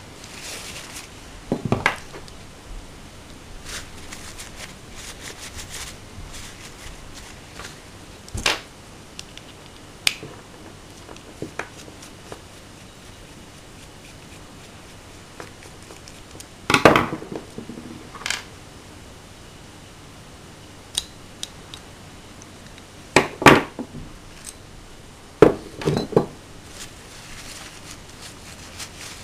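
Metal parts of a Hi-Capa 3.8 gas airsoft pistol and hex keys being handled and set down on a wooden tabletop: scattered separate clicks and knocks, with a few louder clatters midway and again later. A paper towel rustles now and then.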